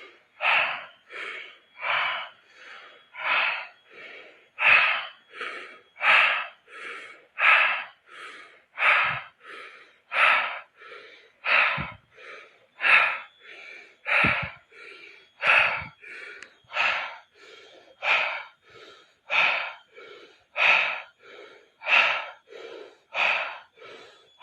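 Rapid, deep breathwork: forceful breaths in a steady rhythm, a loud breath about every 1.3 seconds alternating with a softer one.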